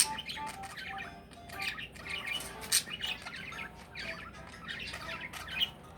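Pet birds chirping and squawking over and over, with a couple of sharp clicks, one right at the start and one a little before three seconds in.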